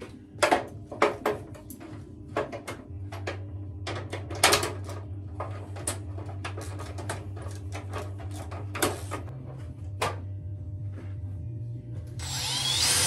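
Scattered sharp metallic clicks and knocks of hand work on the board's fixings, then a little before the end a cordless drill starts up and runs loudly with a whine.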